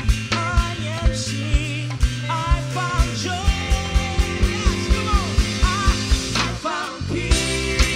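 Live worship band playing, with a steady kick-drum beat under sustained chords and a melody line that bends in pitch. About six and a half seconds in the band breaks off for a moment, then comes back in fully.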